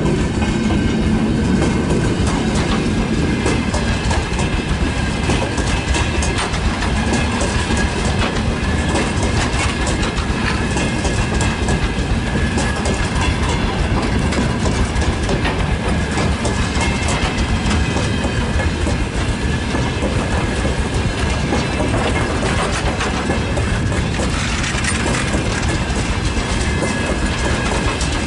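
Freight train tank wagons rolling past close by, their wheels clacking steadily over the rail joints, with a thin high steady ringing from the wheels running under the rumble.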